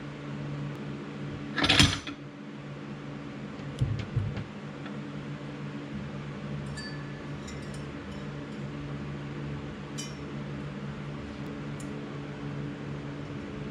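Steady hum of a running fan, with a short, loud noisy burst about two seconds in, a dull thud a couple of seconds later, and scattered light metallic clinks of parts being handled.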